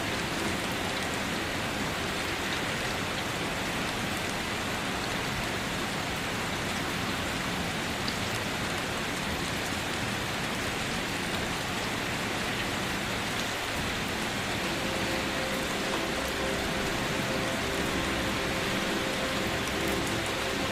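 Steady gentle rain, an even hiss of many drops falling on a surface, without letup.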